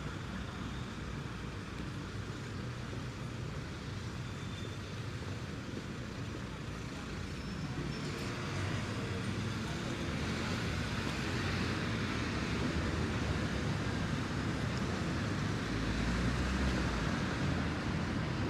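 City road traffic: a steady hum of passing vehicles that grows louder about halfway through, with a deep low rumble near the end.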